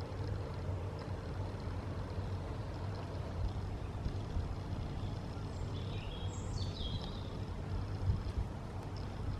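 Steady low outdoor rumble, like wind on the microphone or distant traffic. Around six seconds in a bird gives a short, high call.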